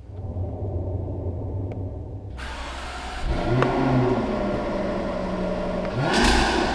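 Jaguar XFR-S's supercharged V8 running: a low rumble at first, then the engine note rises about two and a half seconds in, holds steady, and climbs again under acceleration near the end.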